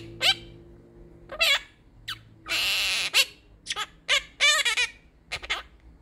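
Quaker parrot (monk parakeet) talking and chattering in a run of short, squeaky mimicked words, among them "baby", with one longer, harsher call about halfway through.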